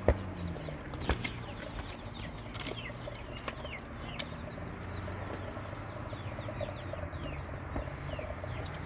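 Birds chirping: many short, quick downward chirps, with a sharp knock just after the start.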